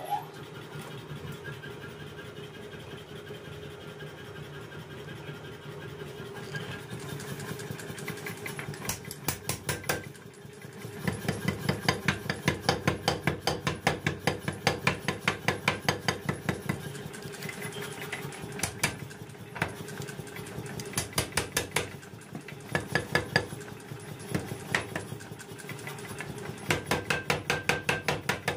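Power hammer ram pounding red-hot steel on its die in rapid blows, several a second, in bursts with short pauses, over a steady machine hum that is heard alone for the first several seconds.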